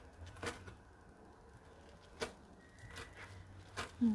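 Cleaver chopping basil leaves on a plastic cutting board: about four sharp knocks, irregularly spaced.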